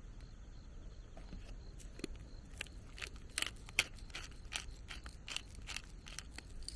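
Hand-twisted seasoning grinder bottle grinding: a run of dry crunching clicks, about three or four a second, starting a couple of seconds in.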